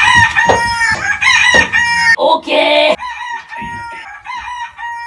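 Rooster crowing loudly close by, long held calls that carry on more quietly after about three seconds.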